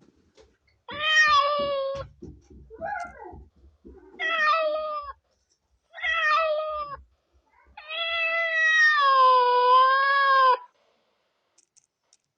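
Kitten meowing: three short meows about two seconds apart, with a faint brief squeak after the first, then one long drawn-out meow of nearly three seconds whose pitch wavers and sinks.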